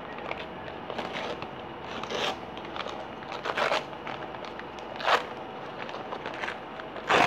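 Shiny wrapping crinkling and tearing as it is pulled open by hand, in a run of rustles with the loudest about every second and a half.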